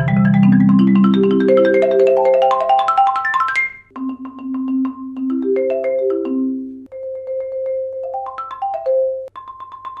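Marimba played with 0gravity Percussion Jupiter 1 hard mallets across its ranges: a loud, quick run climbing from the low bass notes up to the top in the first four seconds, then, after a brief break, softer rolled notes and short runs.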